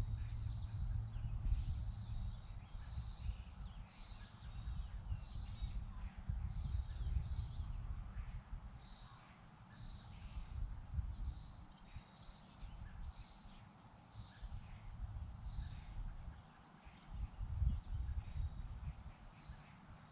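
Small birds chirping in many short, high notes over a low rumble that is heavier in the first few seconds.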